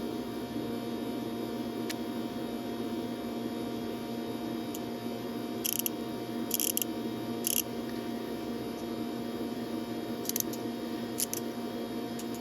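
A space heater runs with a steady hum. About halfway through there are three short clicks, and two more come near the end, as the small steel parts of a 1/4-inch ratchet are fitted back together.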